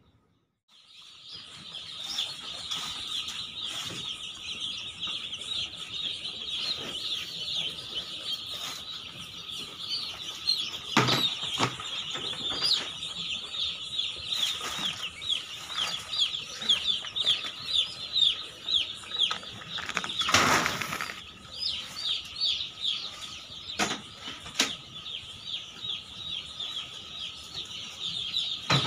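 A crowd of day-old chicks peeping continuously, many high, short, falling chirps overlapping. A few knocks come through the peeping, two near the middle and two later.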